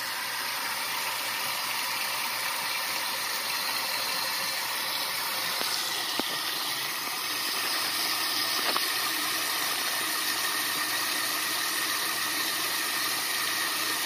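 Tap water running steadily from an RV faucet into the sink, with the camper's water pump running underneath. A couple of faint clicks near the middle.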